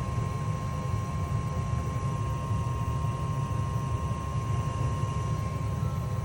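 Gas furnace running after start-up, its blower fan turning normally: a steady low rumble with a faint steady high hum.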